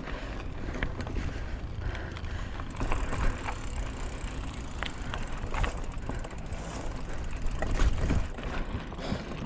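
Mountain bike rolling over a dry dirt trail: a steady rumble of tyres on the ground, with frequent clicks and rattles from the bike as it bumps over the track, and a few harder jolts.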